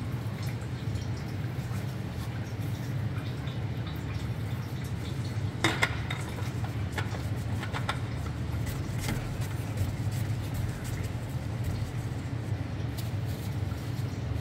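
Steady low hum with a handful of light clicks and taps about six to nine seconds in, as a plastic oil drain plug is fitted back into the oil pan by hand. The last of the used engine oil drips into the drain pan below.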